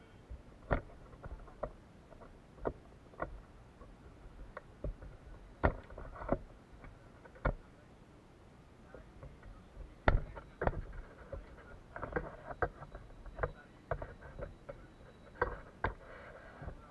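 Scattered, irregular knocks and clicks, the sharpest about ten seconds in, amid a gathering of people moving about.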